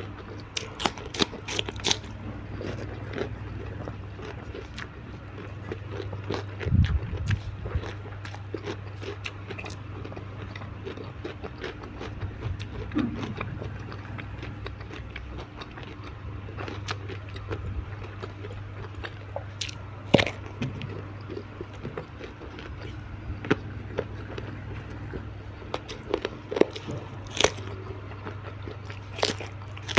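Close-miked eating: irregular crunchy bites and chewing of fried tilapia with raw vegetables and sambal, over a steady low hum.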